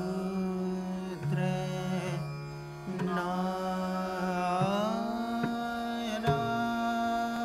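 Background music in an Indian classical style: a melody that slides between notes over a steady drone, with a few sharp plucked or struck accents.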